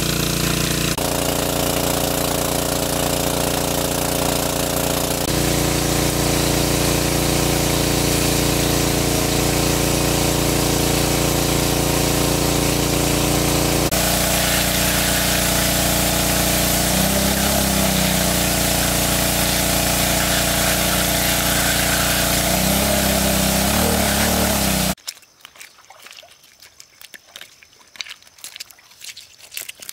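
Engine-driven water pump running steadily while it drains a pool through a large hose. It stops abruptly near the end, leaving only faint wet slaps and trickling on exposed mud.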